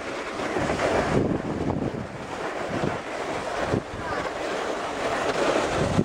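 Wind buffeting the microphone over steps crunching through packed snow, with the noise swelling and easing every second or two.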